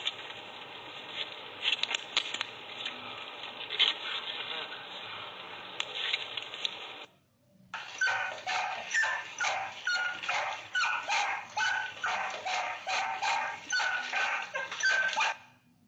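Steady road and wind noise inside a moving car. Then, after a short break, a small dog barks over and over, about two barks a second.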